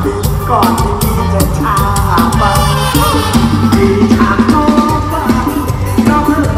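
Loud amplified live mor lam band music, with a singer's voice sliding in pitch over a heavy bass line and a fast, steady drum and percussion beat.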